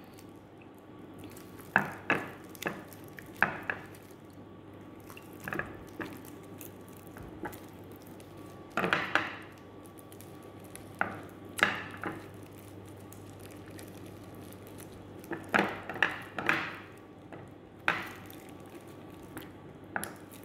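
Gloved hand pressing and turning raw fish fillets in an oily liquid marinade in a glass baking dish: short wet squelches and slaps, scattered, with quiet gaps between them.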